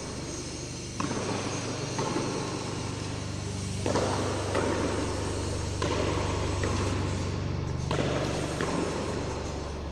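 A pelota being struck back and forth against the frontón wall in a rally, sharp knocks coming roughly once a second, over a steady low hum.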